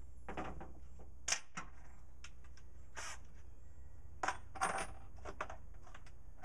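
Light metallic clinks and taps, about eight scattered irregularly, over a steady low hum.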